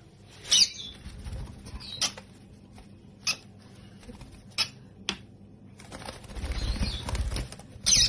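Pet lovebird giving short, sharp high-pitched calls, about six spaced a second or so apart, the loudest just after the start. A low rustling flutter runs from about six to seven and a half seconds in.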